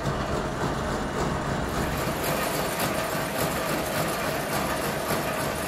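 Electric motor running a belt-driven tank machine that churns spoke wires in soapy water, a steady hum with a constant mid-pitched tone.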